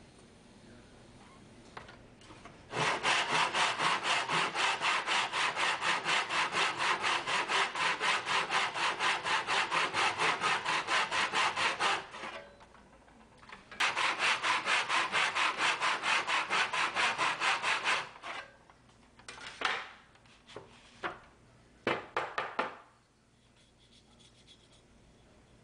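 Backsaw with a stiff metal spine cutting a groove into MDF in a plastic miter box: rapid, even back-and-forth strokes, a run of about nine seconds and then, after a short pause, about four seconds more. A few light knocks and taps follow near the end.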